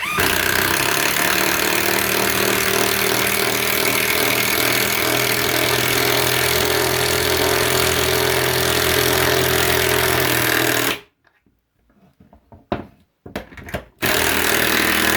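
Bauer 1/2-inch impact wrench hammering a lag bolt into wood in one long run of about eleven seconds that stops abruptly, then a shorter burst near the end, driving the bolt all the way in.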